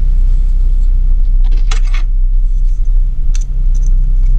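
A steel ruler and a small knife being picked up and handled: a brief rustling scrape about a second and a half in, then a few light metallic clicks near the end. A steady low hum runs underneath throughout and is the loudest thing.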